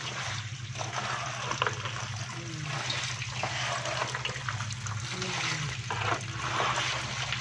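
Shallow water splashing and sloshing as a plastic scoop is worked through a tank packed with live stinging catfish, with many small, quick splashes from the wriggling fish. A steady low hum runs underneath.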